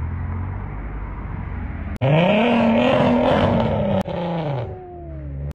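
Car engines from a run of short clips of show cars driving out. First comes a steady low engine hum. About two seconds in, a loud engine revs up in pitch and holds as a car accelerates away. Near the end the engine note falls away.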